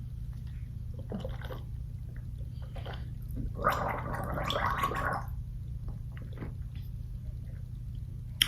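A person gargling or gurgling a mouthful of drink, one gurgle about three and a half seconds in lasting a second and a half, to relieve a dry mouth. A steady low hum runs underneath.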